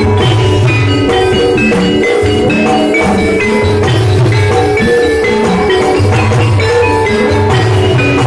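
Javanese gamelan music: metal mallet instruments play quick melodic notes over drumming, without a break.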